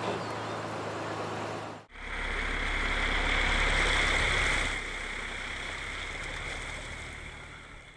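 Four-wheel-drive vehicle crawling over a ditch, heard from below: a steady low engine rumble with hiss. It changes abruptly about two seconds in, is loudest from then until about five seconds in, and then eases off.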